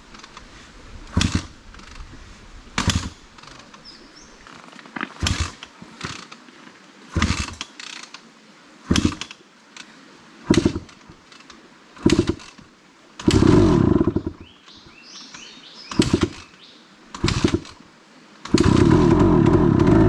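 Dirt bike engine being restarted after taking in creek water and having the water cleared through the spark-plug hole: about ten short bursts as it is kicked over and briefly coughs, a longer splutter about two-thirds of the way in, then near the end it catches and keeps running.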